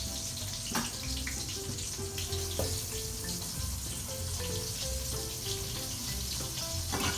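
Eggplant slices deep-frying in hot oil: a steady sizzling hiss, broken by a few sharp clicks. Soft background music plays under it.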